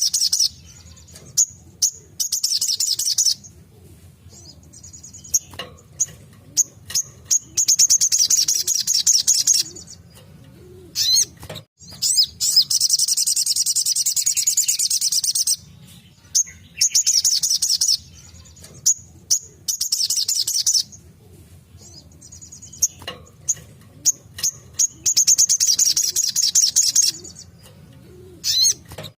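Little spiderhunter (sogok ontong) singing its rapid-fire 'tembakan' song: high-pitched trilling bursts of one to three seconds, with one longer run about halfway. Sharp single chips come between the bursts, over a steady low hum.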